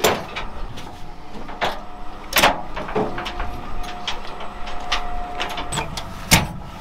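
Clanks and clicks of ratchet straps and hooks being unfastened against a steel diamond-plate truck deck, several sharp knocks with the loudest near the middle and near the end. A faint steady tone sounds for a few seconds in between.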